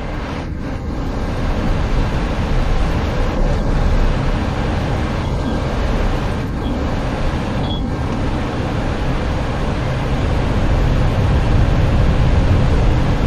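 Boeing 737 on its landing roll with the thrust reversers in use: a loud, steady rush of engine and air noise that swells over the first couple of seconds and again near the end, with a few faint knocks.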